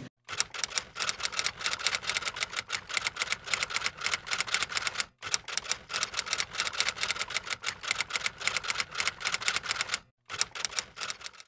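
Typing sound effect: rapid, even key clicks that keep pace with on-screen text being typed out, stopping briefly twice, about five seconds in and near the end.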